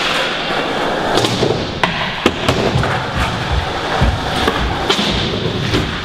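Skateboard rolling on the skatepark floor and ramps, with a steady wheel rumble and several sharp clacks and thuds of the board popping and landing.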